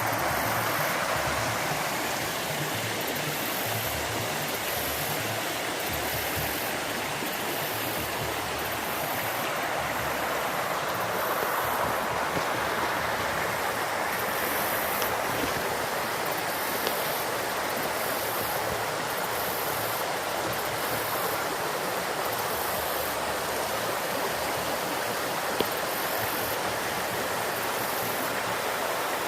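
Storm floodwater rushing, a steady even roar of moving water from a lake swollen by heavy rain.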